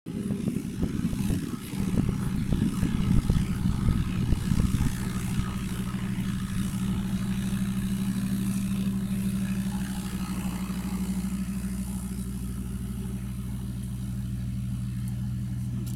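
An engine running at a steady idle, with a louder, uneven rumble and clatter for the first five seconds.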